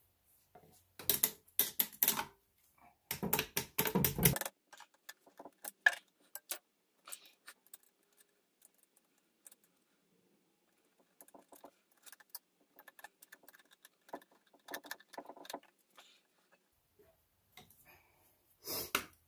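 A metal hose clamp being worked onto a sump pump's PVC discharge-pipe coupling and tightened with a screwdriver: two bursts of metallic rattling clicks in the first four seconds, then scattered light clicks and scrapes, and another short burst of rattling near the end.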